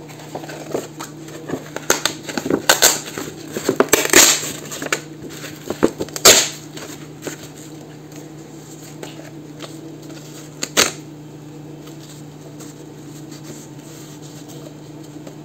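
Paper and card handled by hand: several bursts of crinkling and rustling in the first half and one more a little later, over a low steady hum.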